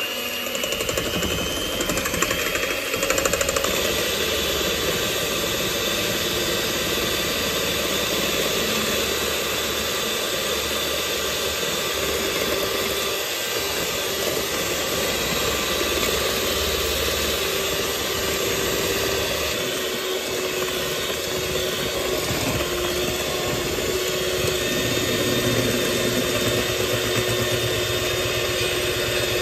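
Electric hand mixer running steadily, its beaters whisking eggs and sugar in a stainless steel bowl.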